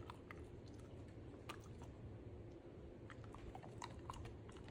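Faint, irregular crunching clicks of dogs chewing calming chew treats.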